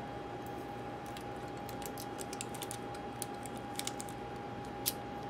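Scattered small clicks and crackles of adhesive tape being peeled off a laptop's AirPort card, with one sharper click near the end, over a steady faint tone.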